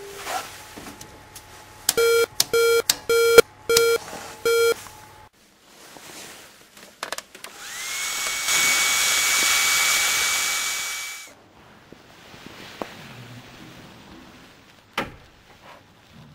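Five short electronic beeps in a row, then an electric motor spins up with a rising whine, runs steadily for about three seconds and cuts off. A single sharp click near the end.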